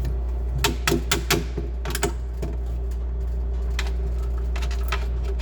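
A quick run of about eight sharp clicks and taps in the first two and a half seconds, over a steady low hum.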